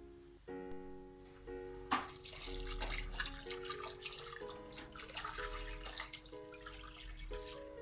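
Gentle piano background music, with water running from a tap into a sink starting about two seconds in and continuing until near the end.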